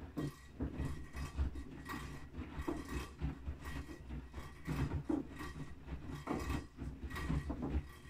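Bosch front-loading washing machine mid-wash, its drum turning and laundry tumbling and sloshing in soapy water with irregular soft thuds. The drum starts turning right at the beginning and stops near the end.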